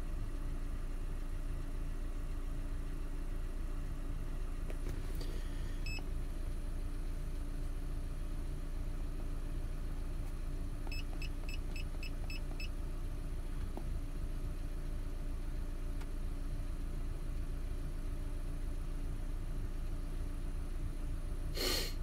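Ford Ranger engine idling steadily, heard from inside the cab. About halfway through, the OBD-II scan tool gives a quick run of about seven short beeps as its buttons are pressed, with a few single beeps before that and a brief rustle near the end.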